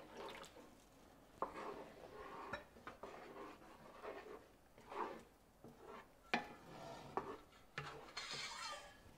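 Wooden spatula stirring rice-flour batter into thick taro paste in a nonstick frying pan: irregular soft scraping against the pan, with a few sharp knocks.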